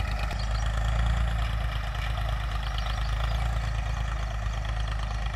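A 1980 Ford 3600 tractor's three-cylinder diesel engine running steadily under load while pulling a disc harrow, heard through an aftermarket pipe-type silencer.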